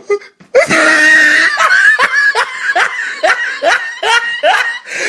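A person laughing hard: one held note, then a run of short rising bursts of laughter, about two to three a second.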